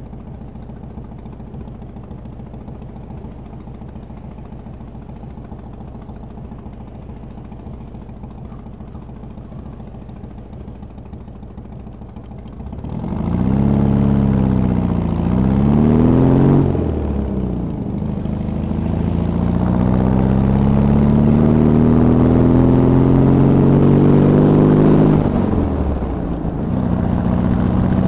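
Boom trike's engine idling steadily for about thirteen seconds, then pulling away: the revs climb, drop at a gear change, climb again through a long pull, and drop at a second gear change near the end before holding steady.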